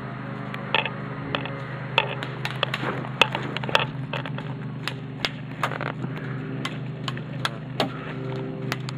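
Airsoft guns firing single shots: sharp, irregular snaps every half second or so over a steady low hum.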